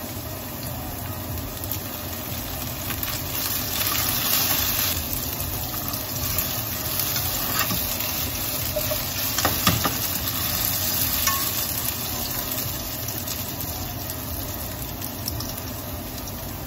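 Cubes of nagaimo (Chinese yam) sizzling steadily in garlic-flavoured oil and soy sauce in a frying pan, stirred and turned with long chopsticks, with a few light clicks of the chopsticks against the pan.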